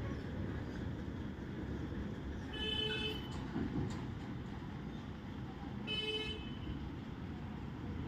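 Truck engine running with a steady low rumble, while a vehicle horn gives a short toot twice, about three and a half seconds apart.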